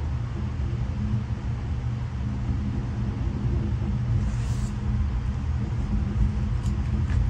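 Double-stack intermodal freight cars passing on the adjacent track, heard from inside a passenger car: a steady low rumble, with a brief hiss about four seconds in and a few sharp clicks near the end.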